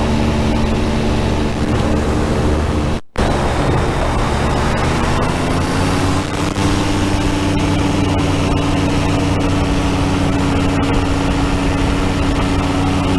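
Powered parachute's engine and propeller running steadily in flight. About five seconds in the revs rise smoothly to a higher, steady note. The sound briefly drops out about three seconds in.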